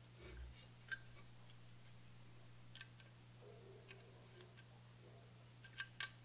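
Near silence with a few faint, sharp clicks of a Torx wrench and small steel bolts being turned in the clamp block of a BCM KMR Alpha handguard, over a low steady hum.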